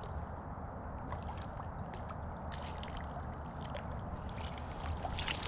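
Steady rush of stream water, with light splashing at the surface that gets busier near the end.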